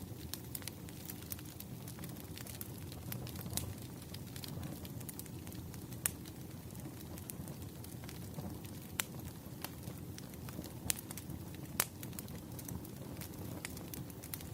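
Campfire burning: a steady low rumble of flames with frequent sharp crackles and pops of burning wood, a few louder snaps scattered through.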